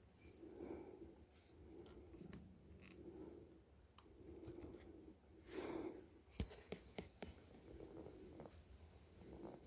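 Near silence with faint scraping and scattered clicks, a little louder about halfway through.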